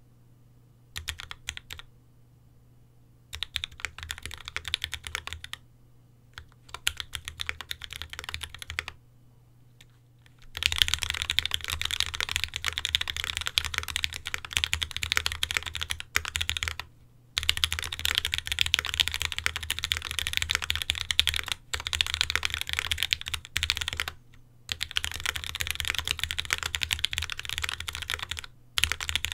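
Typing on a Space65 mechanical keyboard with lubed Tealios V2 67g linear switches, a carbon fibre plate and GMK ABS keycaps, set on a desk mat. Short bursts of keystrokes with pauses give way, about ten seconds in, to fast, near-continuous typing broken by a few brief gaps.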